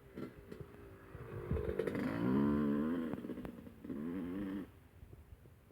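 Yamaha YZ250 two-stroke single-cylinder dirt bike engine, freshly rebuilt, revved up and back down. A second, shorter blip of the throttle follows, then the engine sound drops away near the end.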